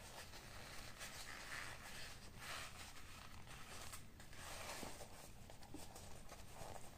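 Faint rustling and scuffing of a small leather pouch with a fabric lining being handled and turned over in the hands.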